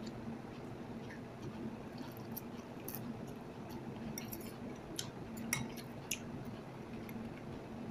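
Close-up eating sounds: chewing, with a few light clicks of a metal spoon against the bowl and one sharper clink about five and a half seconds in. A steady low hum runs underneath.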